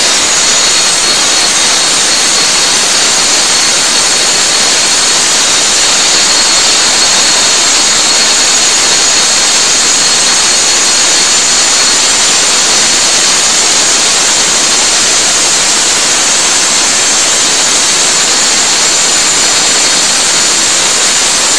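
Rotary cut-off saw with a metal-cutting blade cutting through the hinge of a steel door. It runs at full speed: a loud, steady high whine over a hissing grind.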